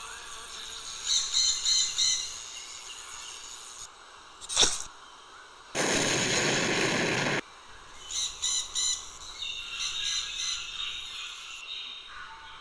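Bird calls in short clusters of high chirps, with a sharp click a few seconds in and a loud steady hiss lasting about a second and a half near the middle.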